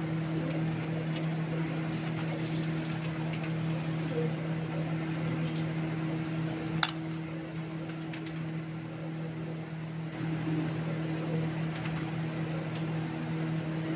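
A steady low hum, with one sharp click a little past the middle.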